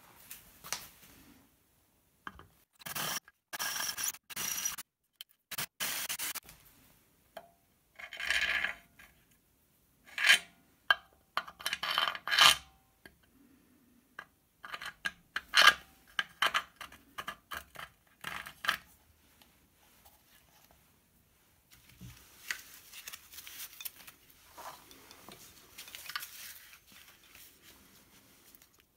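Metal bolts and hand tools clinking, knocking and scraping against an e-bike's motor mount bracket, in short clusters with quiet pauses between, then fainter scratchy handling near the end.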